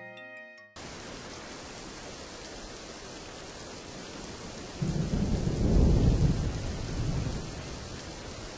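Steady rain falling, with a low roll of thunder that swells about five seconds in and dies away over the next few seconds. A short mallet-instrument jingle cuts off within the first second.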